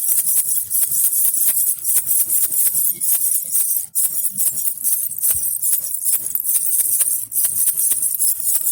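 Baby rattle (jhunjhuna) shaken continuously, a dense, high jingling rattle of rapid strokes, with a brief break about four seconds in.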